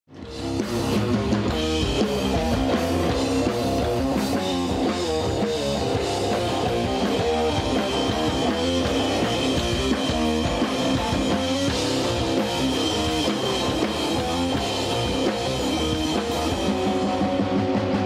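Rock band playing live without vocals: electric guitar, bass guitar and drum kit, coming in over the first half second and then playing on steadily.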